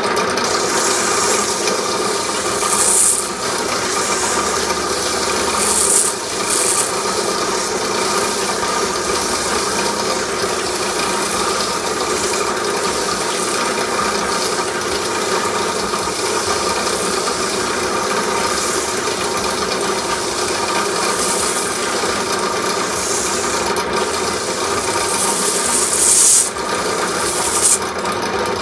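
Drill press running steadily with a flap sanding wheel spinning in its chuck, wood pressed against the flaps to sand the inside of a curve. Now and then a brighter, louder rasping comes in as the wood is pushed harder against the abrasive.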